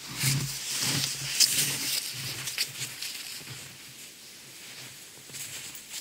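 Footsteps crunching in snow with the rustle of a padded snowsuit, as a person walks about close by, at an irregular pace.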